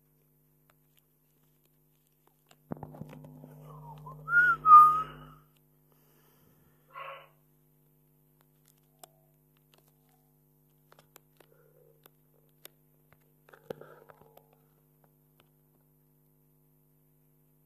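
Two short whistled notes about four seconds in, over a steady low hum that starts and cuts off with them. Later a brief noisy burst and a few faint clicks.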